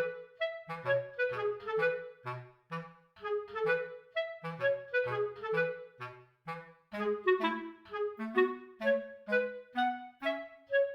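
Background music: a light, bouncy woodwind tune over a line of short bass notes.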